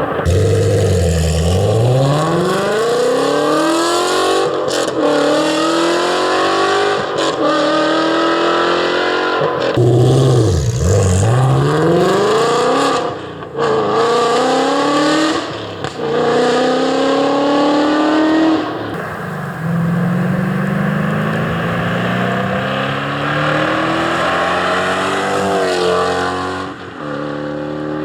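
Ford Mustang Shelby GT350's 5.2-litre flat-plane-crank V8 through Stainless Works stainless steel headers and exhaust, accelerating hard. The engine note climbs in pitch through several pulls, each dropping back at a gear change. A slower, lower climb follows in the last third.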